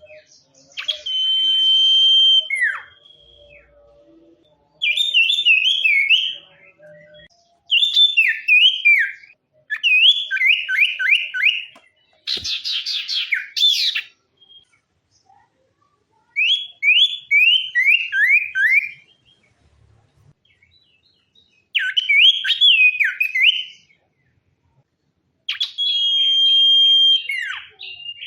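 Sirtu songbird singing in short bouts of fast, clear whistled notes that slide down in pitch, each phrase lasting one to two seconds with brief pauses between, and one harsher, scratchy phrase about twelve seconds in. A varied 'full isian' song, used by keepers as a master recording to teach or stir other birds.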